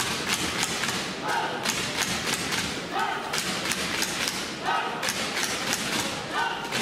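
Arena crowd chanting and clapping in rhythm: a short rising shout repeated about every second and a half over many sharp claps and thumps.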